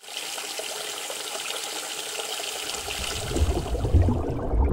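Rushing, gurgling water, hissy at first and turning into a deeper rumbling swell from about three seconds in.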